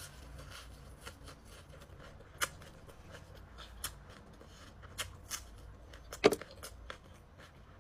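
Close-up chewing and crunching of fresh raw vegetables and chili, with scattered crisp clicks and wet mouth sounds; one louder crunch about six seconds in.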